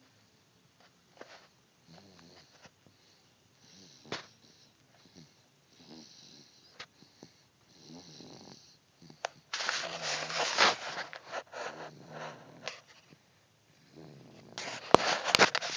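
Snoring: soft, rasping snores at first, then much louder, rougher snores about ten seconds in and again near the end. A couple of sharp clicks come near the end.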